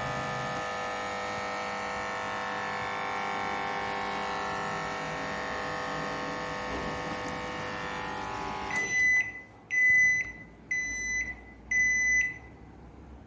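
LG 23-litre microwave oven running with a steady buzzing hum from its high-voltage transformer, the noise the owner presents as a transformer sound problem. About nine seconds in the hum stops and the oven beeps four times, its end-of-cooking signal.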